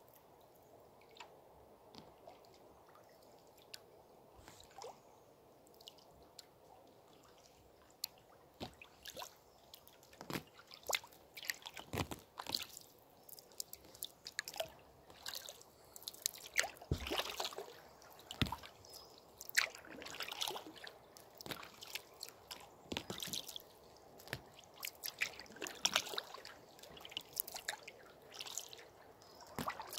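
Canoe paddling on calm water: small irregular splashes and drips from the paddle blade, sparse at first and busier from about eight seconds in, over a faint steady sound of flowing river water.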